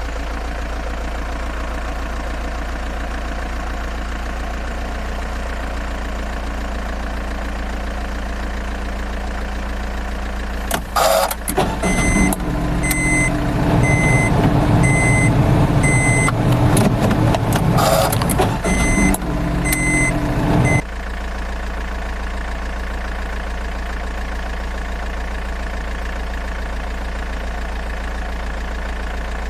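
Heavy truck engine sound idling with a steady low hum. From about eleven seconds in it grows louder for about ten seconds, with a few sharp clicks and a reversing alarm beeping at an even pace. Then it drops back to the idle hum.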